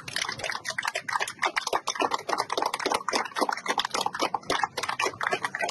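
A small group of people applauding, many hands clapping in quick, uneven claps.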